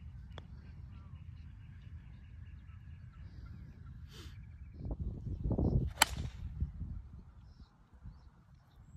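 A golf club striking the ball on a tee shot: one sharp crack about six seconds in, the loudest sound, after a second of rising rumble. Low wind-like rumble on the microphone under it.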